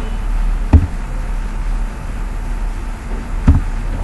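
Steady low hum and hiss of the recording, with two sharp clicks, about a second in and near the end, from computer keys being pressed as a command is typed.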